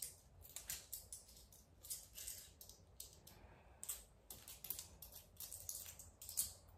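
Euro coins faintly clicking and clinking against one another as they are slid and sorted by hand on a floor mat, in quick irregular clicks.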